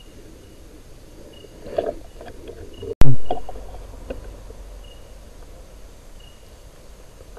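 A single rifle shot about three seconds in, sharp and loud, its report dying away over about a second, with a few small knocks and rustles after it. Light handling rustle comes just before the shot, and a faint high insect-like chirp repeats every second or so.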